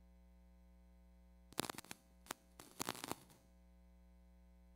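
Steady electrical mains hum on the microphone feed. About a second and a half in, a cluster of clicks and rustles from handling close to the microphone lasts under two seconds.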